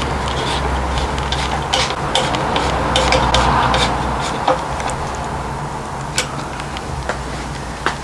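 Hex key turning the mounting bolt through a Fox rear shock's eyelet, making small irregular metal clicks and light scraping, over a steady low hum.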